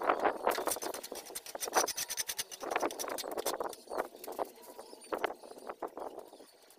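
Steel pointing trowel scraping and clinking against a mortar board as cement mortar is scooped and worked, in a quick, irregular run of scrapes and clicks that thins out toward the end.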